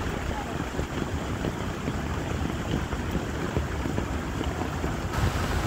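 Heavy rain falling steadily on a plastic tarp and wet stony ground, with wind buffeting the microphone.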